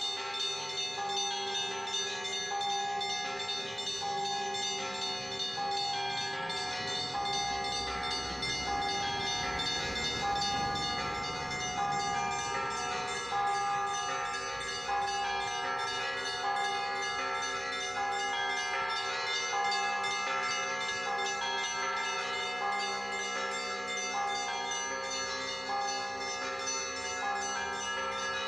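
Russian Orthodox church bells rung from the bell tower: many bells of different pitches struck in quick succession, in a continuous peal over their sustained ringing.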